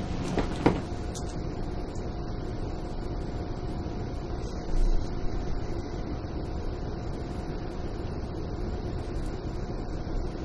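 Steady room hum with a thin, faint whine, like a fan or air conditioner, interrupted by two light clicks about half a second in and a brief low bump near the middle.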